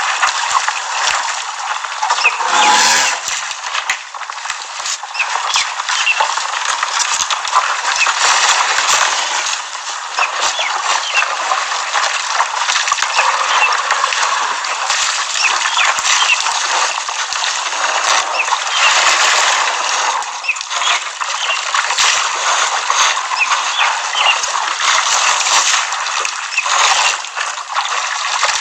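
Elephants at a waterhole, with water splashing and sloshing and short bird chirps throughout; about three seconds in, a short call falls in pitch.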